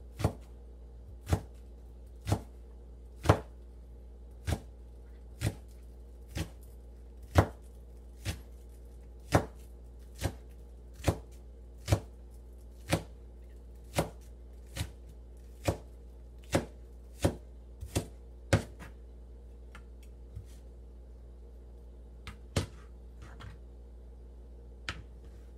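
Chef's knife chopping green onion on a plastic cutting board: slow, even strokes about one a second, each a sharp knock of the blade against the board. The chopping stops about three quarters of the way through, and a few lighter, scattered taps follow.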